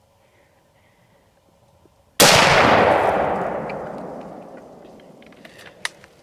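A single 7mm-08 rifle shot about two seconds in, sudden and loud, its report echoing and dying away over about three seconds. A few faint clicks follow near the end.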